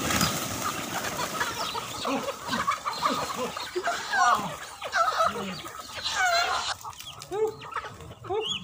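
Chickens squawking and clucking in alarm, caught under a thrown cast net, with wings flapping and the net rustling until near the end.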